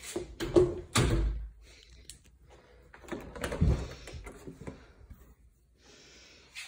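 Interior doors being handled and opened: sharp clicks and knocks in two clusters, each with a low thump.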